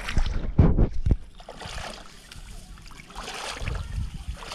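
Hands splashing and sloshing in shallow, muddy pond water while groping for fish, with a few loud low thumps in the first second, then softer splashing and rustling.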